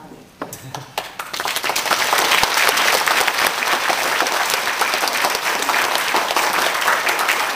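A seated congregation applauding: a few scattered claps start about half a second in, swell within a second into steady applause, and die away near the end.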